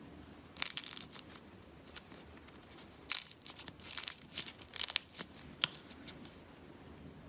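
Slime being squeezed and stretched by hand, giving off crisp crackling and popping in short clusters: a brief run about half a second in, then a longer, denser run of crackles through the middle.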